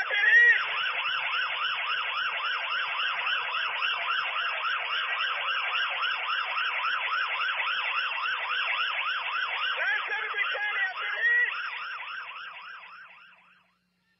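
Police car siren on a rapid yelp, its pitch sweeping up and down about four times a second, fading out and stopping near the end.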